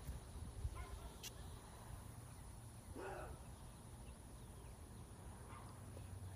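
A few faint goose honks, the clearest about three seconds in, over a low wind rumble on the microphone.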